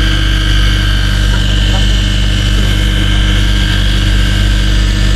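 A fishing boat's onboard engine running with a steady drone, a constant low hum and a thin high whine over it.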